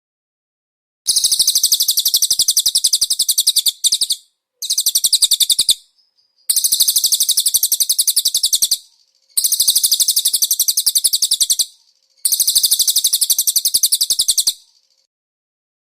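Cililin birdsong: five bursts of a very fast, high-pitched trill, each about two to three seconds long, with short pauses between them.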